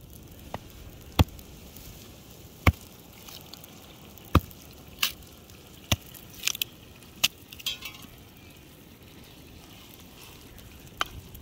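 Meat stewing in a large metal pan over an open wood fire, with a steady low sizzle. About ten sharp metallic knocks and clinks come at irregular intervals as a steel bowl is tipped into the pan and a ladle stirs.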